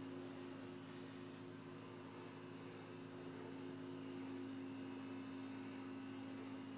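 A faint, steady low hum of several held tones over a light hiss.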